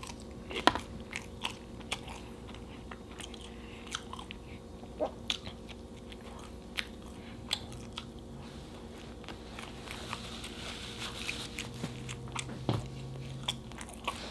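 Close-miked eating of a burger and fries: irregular clicks and crunches of biting and chewing, with a few sharper bites standing out.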